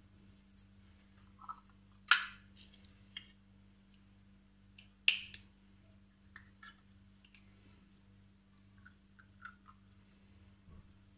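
Ring-pull tin of tuna being opened by hand: two sharp metallic clicks about three seconds apart as the tab and lid break open, with lighter clinks and scrapes of the lid being peeled back between them.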